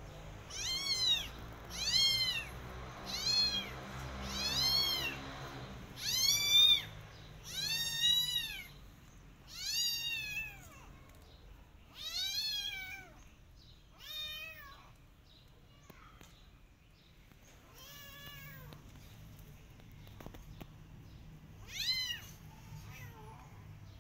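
Kitten meowing loudly over and over, high-pitched calls that each rise and fall in pitch, about one a second at first, then sparser and fainter in the second half, with one more loud meow near the end.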